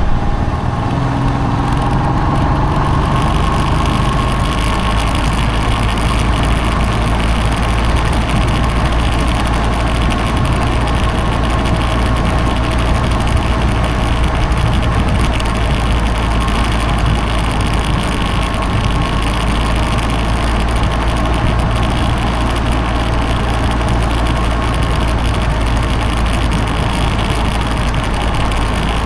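Motorcycle running steadily while under way: a loud, even engine and road noise with a deep low rumble.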